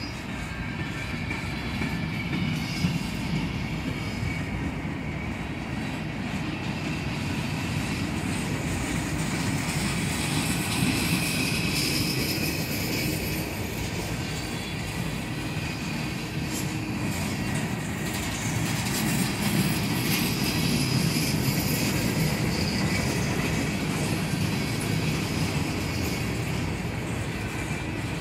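Empty centerbeam flatcars and a refrigerated boxcar of a slow freight train rolling by, a steady low rumble and rattle of steel wheels on the rails. Faint high wheel squeal comes and goes.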